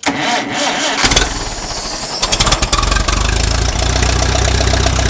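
International Harvester 350 Utility tractor's gasoline engine cold-started on full choke after sitting a week: the starter cranks for about a second, then the engine catches and runs steadily.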